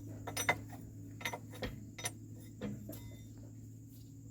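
Scattered light metallic clicks and clinks of tools and parts being handled during excavator repair work, at irregular intervals over a steady low hum.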